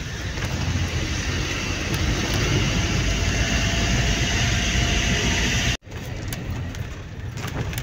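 Motorhome driving slowly: a steady low engine rumble with tyre and road noise, growing slightly louder as it climbs a ferry's loading ramp. A little under six seconds in it cuts off abruptly to a quieter, steadier hum with a few faint clicks.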